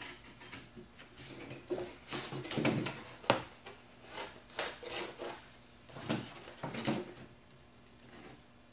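Cardboard being cut out and handled: irregular scraping and rustling with scattered knocks and one sharp click a little over three seconds in.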